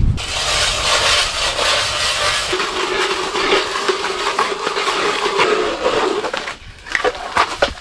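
A small motor running with a steady grinding whir, a low hum settling in about two and a half seconds in. It stops about six and a half seconds in, and a few sharp knocks follow.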